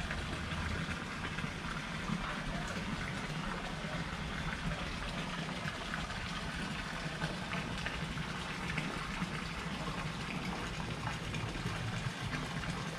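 Steady rushing noise, like running water, with scattered faint ticks and a low rumble underneath.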